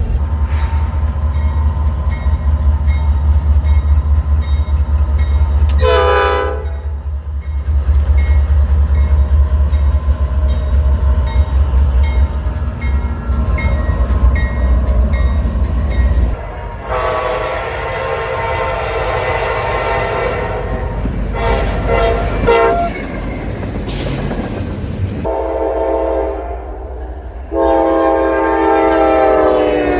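Diesel locomotive air horns sounding multi-note chords. A heavy low rumble of a train with a short horn blast about six seconds in, then several long horn blasts over the second half, changing abruptly from one to the next.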